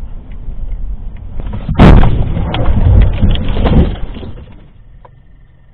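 Car crash heard from inside the car: road rumble, then a sudden loud impact about two seconds in, followed by two seconds of crunching and scraping with sharp knocks. It then dies away to quiet, with a faint steady high tone near the end.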